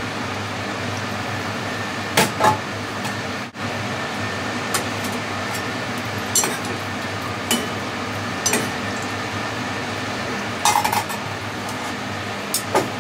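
Cooking utensils clinking and knocking against pots and dishes, in scattered single strikes and a short cluster near the end, over a steady background hum.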